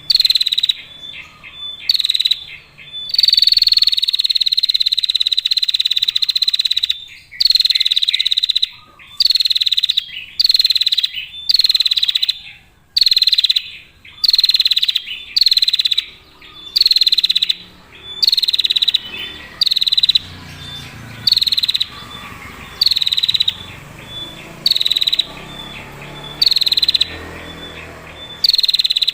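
Female prinia (prenjak) giving its long, clear buzzing trill over and over: high-pitched trills mostly about a second long with short gaps, one held for about four seconds near the start.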